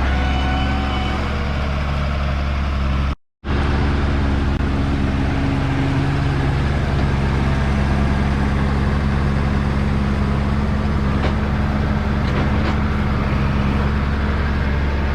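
Diesel farm tractor engine running steadily at a constant speed, with a brief gap in the sound about three seconds in.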